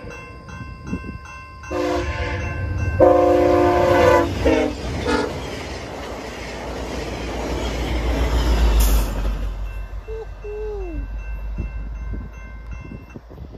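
Level-crossing warning bell ringing steadily, then a VIA Rail passenger train's air horn sounds four blasts, the first two longer. The train then rumbles past, loudest about eight seconds in, and the crossing bell is heard again until near the end.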